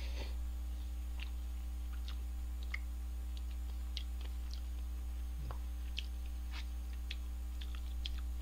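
A person slurping in a mouthful of instant stir-fried jjamppong noodles, then chewing with small wet mouth clicks. A steady low electrical hum runs underneath.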